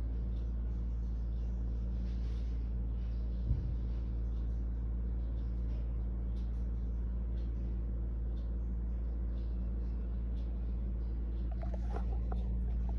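Steady low electrical hum with several steady tones in it, on a silent open phone line while the caller waits; a single soft thump about three and a half seconds in and faint muffled sounds near the end.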